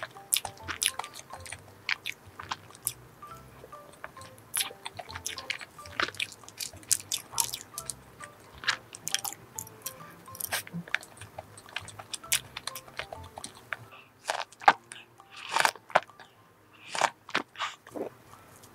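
Close-miked eating of a kirsch cream cake topped with chocolate shavings: many soft, quick mouth clicks and chewing sounds, a few louder ones in the last few seconds, over quiet background music.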